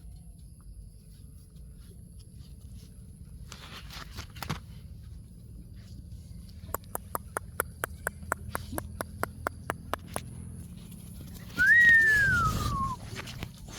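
A dog whines once, a single falling whine near the end, over low steady background noise. A run of quick sharp clicks, about four or five a second, comes a few seconds before it.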